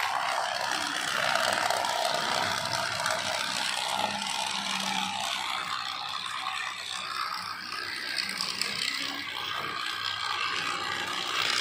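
Motorized toy train locomotives running on plastic track: a steady motor whir with the rattle of wheels and cars on the rails.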